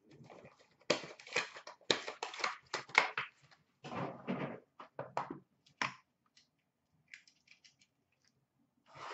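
Crinkling and tearing of packaging as a sealed box of Upper Deck Stature hockey cards is unwrapped and opened: a run of loud crackles in the first few seconds, shorter bursts after, a few small clicks, and a last burst near the end.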